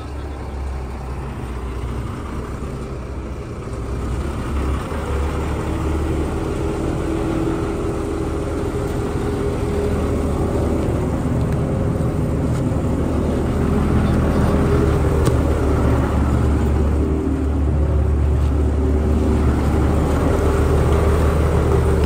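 Heavy diesel farm machinery running steadily with a deep, even hum. It grows gradually louder over the first dozen seconds or so, then holds.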